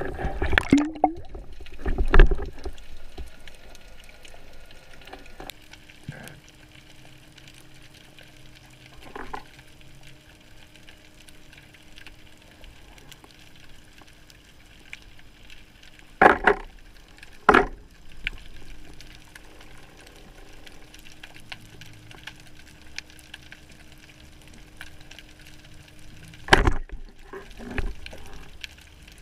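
Underwater sound heard through an action camera's waterproof housing: water rushing and bubbling for the first couple of seconds, then a low steady hiss with a faint constant hum. The hiss is broken by a few sharp knocks: two about a second apart in the middle, and two more near the end.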